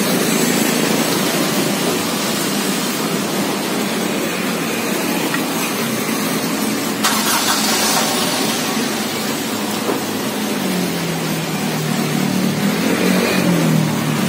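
Steady road traffic noise, motor vehicle engines running past, with one engine note rising and falling near the end and a brief hiss about seven seconds in.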